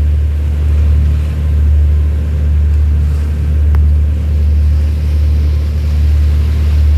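Steady low rumble of a large ship's engine, swelling and easing every second or two.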